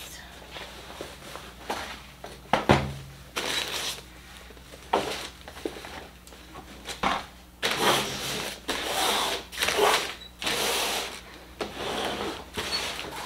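Hands rustling a fabric travel bag and moving cardboard boxes across a table: a series of rustles and scrapes, with a sharp knock about three seconds in and longer stretches of rustling in the second half.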